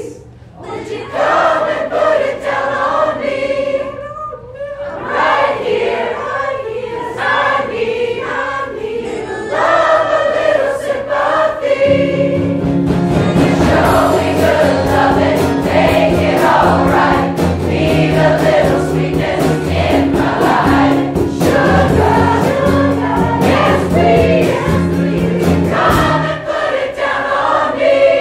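A large crowd of men and women singing a pop song together as a choir. About twelve seconds in, drums and cello come in fully underneath the voices; they drop away near the end, leaving the voices mostly alone.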